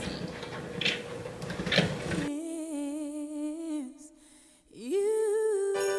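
An electric hand mixer beats butter on medium speed, a steady whir with a couple of sharp knocks. About two seconds in it gives way to a woman's sung notes from a Christmas pop song. After a brief gap, a note glides up and is held.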